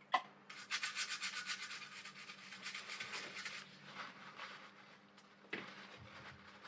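Quick back-and-forth scrubbing strokes on a circuit board, about eight a second, cleaning crud off the soldered joints. The strokes go lighter after about three and a half seconds and stop near the end.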